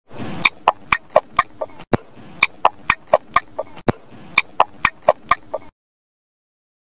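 Cartoon eating sound effect: a quick run of sharp chomps, about five a second, played three times over, then cut off suddenly.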